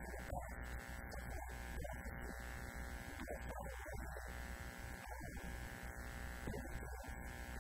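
Steady electrical hum and buzz throughout, with a man's voice coming and going faintly beneath it.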